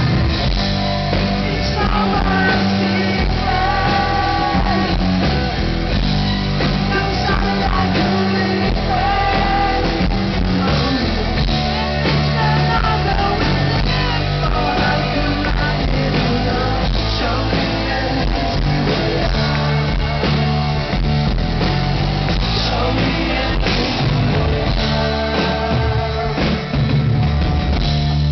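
Rock band playing live: a male lead singer over electric guitars, bass and drums.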